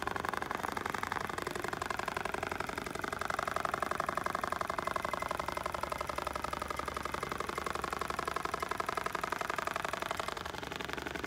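Computer-controlled industrial pattern sewing machine (Dematron DM-1280) stitching steadily through a clamped upholstery panel, a rapid, even run of needle strokes.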